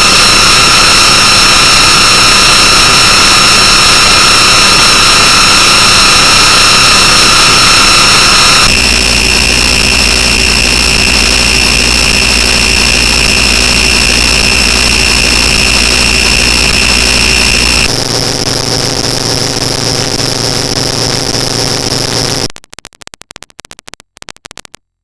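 Fan-made emergency alert alarm, extremely loud and distorted: steady harsh alarm tones over noise, switching to a different tone set about nine seconds in and again about eighteen seconds in, then breaking up into stuttering fragments and cutting off near the end.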